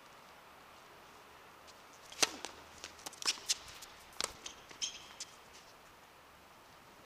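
Tennis rally on an outdoor hard court: sharp racket-on-ball strikes, the loudest about two seconds in and another about two seconds later, with ball bounces, quick running footsteps and a brief sneaker squeak between them.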